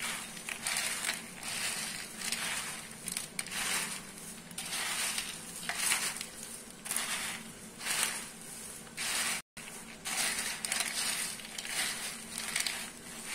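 Hands tossing a steel plate heaped with crisp fried sweet mixture (boondi, sev, nuts and raisins). The dry pieces rustle and crunch against each other and the plate in repeated scoops, roughly one or two a second.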